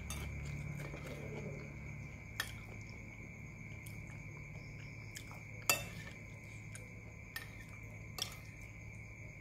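Spoon clinking and scraping against a ceramic soup bowl: a few separate sharp clinks, the loudest about halfway through.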